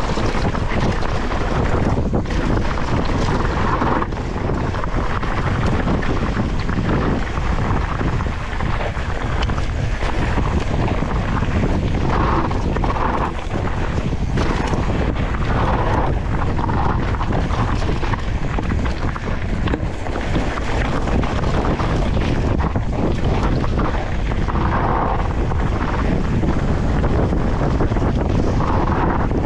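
Wind buffeting a GoPro's microphone while riding a mountain bike down a trail: a steady, loud rush with no letup.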